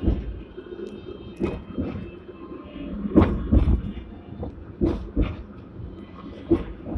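A Hong Kong seventh-generation tram running, heard from inside near the driver's cab: a low rumble with sharp knocks and rattles that come in pairs about every second and a half.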